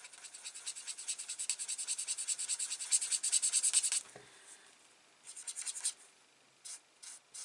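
A Stampin' Blends alcohol marker squeaky on card stock as it is rubbed back and forth in quick strokes to blend the colouring. It runs continuously for about four seconds, then comes in a few short bursts.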